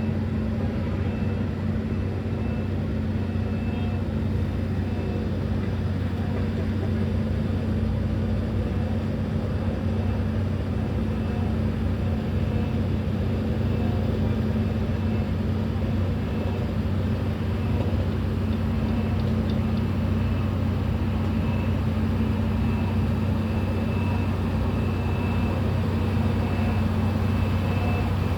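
Bulldozer's diesel engine running steadily at constant revs, a low even drone that holds the same pitch throughout.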